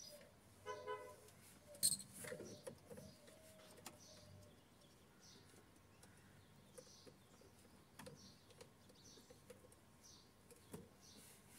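Faint, scattered clicks and knocks of hands and tools working on parts under a car dashboard, with a sharp click about two seconds in the loudest. Birds chirp faintly and repeatedly in the background, and a short pitched call comes just before one second.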